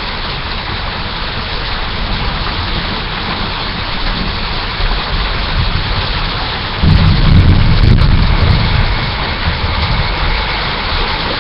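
Steady loud hiss of a webcam microphone, with a louder low rumble for about two seconds in the middle.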